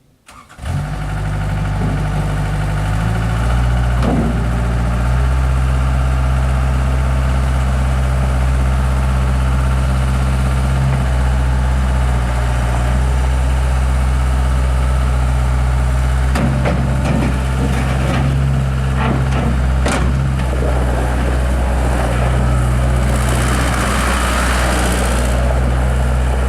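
Mustang 960 skid steer loader's engine starting about half a second in, then idling steadily. A few knocks come about two-thirds of the way through, and a brief hiss near the end.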